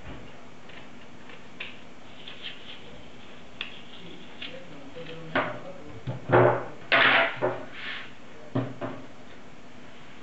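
A knife cutting apple pieces and knocking against a ceramic bowl, with pieces set down in it: a string of light knocks and clicks, sparse at first and closer together and louder from about five to eight seconds in, over a steady hiss.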